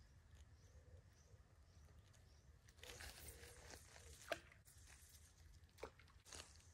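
Near silence: faint outdoor quiet with scattered small clicks and crackles, the sharpest about four seconds in.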